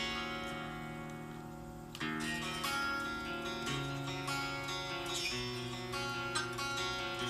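Greco GP-850 guitar strummed in chords that are left to ring, with a new chord struck about two seconds in, again about three and a half seconds in, and again a little after five seconds.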